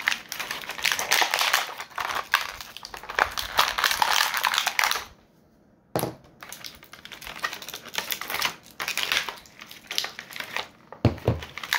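Stiff plastic toy packaging crackling and clicking as action-figure accessories are pried out of the back of the tray, a fast run of crackles that stops for about a second midway, then one sharp click and more scattered plastic clicks and rustles.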